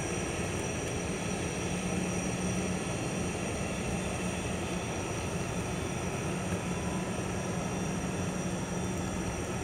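Airbus A320-family airliner's jet engines running at low taxi power: a steady rush with a constant high-pitched whine.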